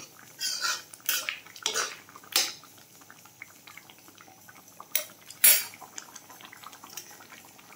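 Metal ladle scraping and clinking against a metal kadai while stirring a simmering vegetable curry: several scrapes in the first two and a half seconds, then a couple of louder clinks about five seconds in.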